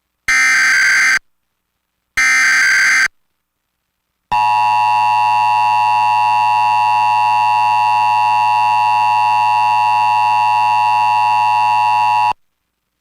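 Emergency Alert System SAME header: the last two of its three short buzzing data bursts, each just under a second long. After about a second's pause comes the EAS two-tone attention signal, a steady dissonant tone held for about eight seconds and cut off sharply, marking the start of a required monthly test.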